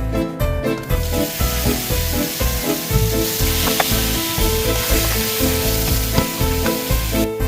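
Food sizzling and frying in a hot pan, starting about a second in and stopping just before the end, over background music with a steady beat.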